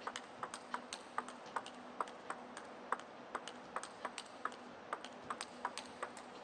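Table tennis rally: the ball clicking off rubber bats and the table in a quick, even run of sharp ticks, about three a second.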